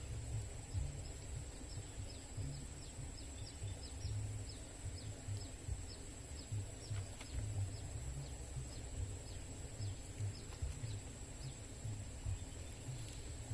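A bird calling with a long series of short, falling chirps, about two a second, that stop near the end. Behind it are a steady high-pitched whine and a low rumble.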